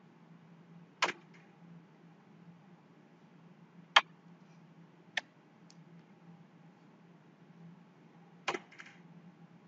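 Four sharp, isolated clicks, spread out and a few seconds apart, the loudest about four seconds in, over a faint steady low hum.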